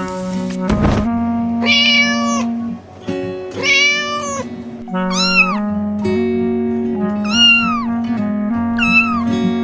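A cat meowing five times over steady background music. The first two meows are longer and held level; the last three are shorter and rise and fall in pitch. There is a sharp knock just before the first meow.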